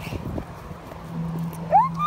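A young child's high-pitched squeal, rising and then held, near the end, over faint soft knocks and rustling.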